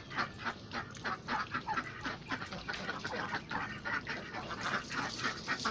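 A flock of domestic ducks quacking without a break, with many short, overlapping calls several times a second.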